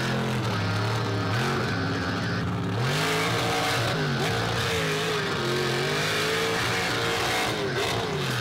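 Mega truck engine revving hard under throttle while driving through mud, its pitch rising and falling several times as the throttle opens and eases.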